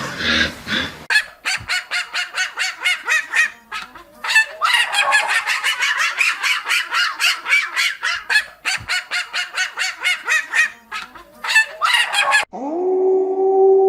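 A flock of geese or ducks calling in a fast, continuous run of honking calls, several a second, with a few brief pauses. Near the end it cuts off abruptly to a steady, held humming tone.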